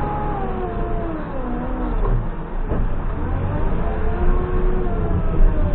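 JCB 3CX backhoe loader's diesel engine running, its pitch falling and rising several times as the revs change, with one sharp knock about three seconds in.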